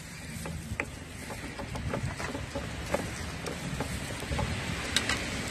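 Pestle grinding and pressing sambal in a cobek mortar, with irregular small clicks and knocks as it scrapes and taps against the bowl.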